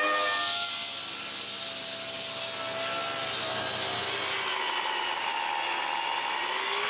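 Woodworking power tool cutting a board: a steady rush of cutting noise over the motor's whine.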